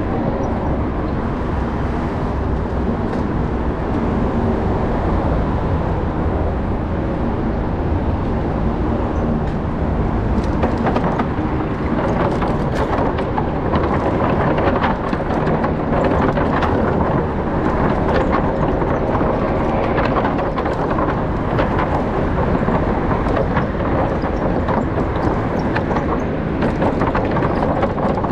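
Bicycle rolling over a wooden plank deck: a steady, loud rumble with a rapid patter of small knocks as the tyres run over the plank joints, busiest in the second half.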